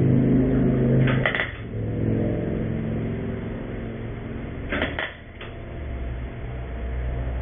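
MIG welder tacking a steel patch panel onto a truck firewall in short bursts: the arc buzzes and crackles, with sharp clusters about a second in and again about five seconds in.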